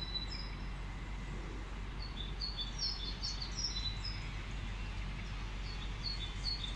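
Songbirds singing: a few phrases of quick, high chirps, with pauses of a second or two between them, over a steady low hum of nearby road traffic.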